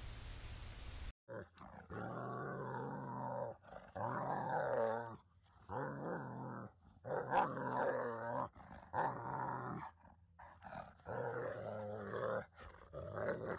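A dog growling and grumbling in a run of drawn-out, wavering vocalizations, each a second or two long with short gaps between them. Before it, about a second of steady hiss cuts off abruptly.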